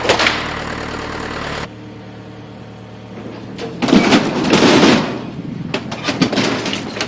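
John Deere 410 backhoe's diesel engine running steadily, then dropping away abruptly about a second and a half in. Around four seconds in comes a loud crunching crash of wooden framing breaking and collapsing, followed by scattered snaps and cracks of splintering wood.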